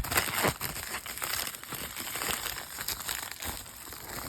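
Packaging being unwrapped by hand: an irregular crinkling and rustling of wrapping material.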